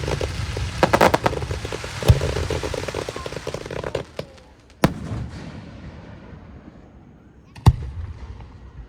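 Aerial fireworks: a quick run of sharp cracks about a second in, a heavy bang about two seconds in followed by a spell of dense crackling, then single sharp booms about five and nearly eight seconds in, each trailing off in a low rumble.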